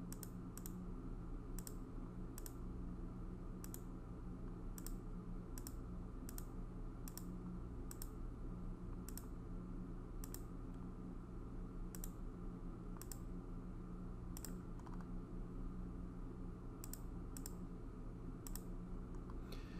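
Computer mouse clicking: single sharp clicks at an irregular pace of about one a second, over a steady low hum.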